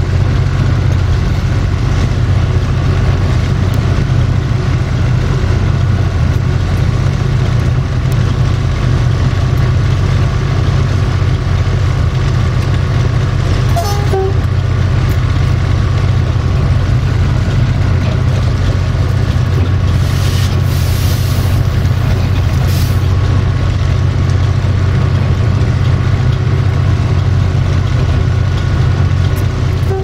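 Diesel-electric locomotive EGM621 running steadily, heard from inside the cab. A short horn toot sounds about halfway through, and a hiss of air follows about two-thirds of the way in.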